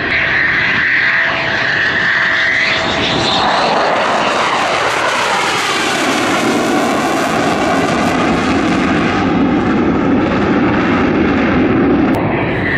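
Eurofighter Typhoon jet passing overhead as it comes in to land: the high steady whine of its twin EJ200 turbofans drops sharply in pitch about three and a half seconds in as it goes by, then turns into a deep rushing jet noise as it moves away. Near the end a high whine starts up again.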